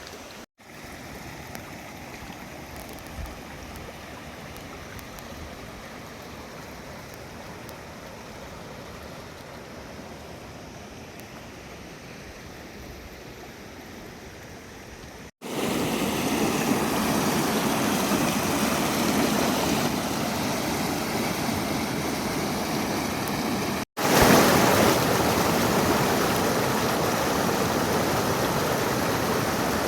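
Steady rush of flowing stream water with no distinct events. It is softer for the first half, then much louder after a brief break about halfway, with another brief break near the end.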